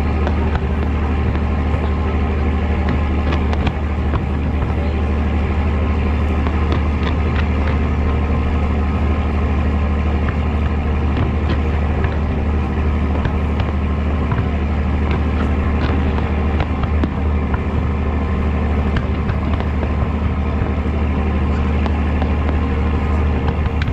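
Fireworks display going off continuously: many sharp crackles and pops over a steady loud low rumble.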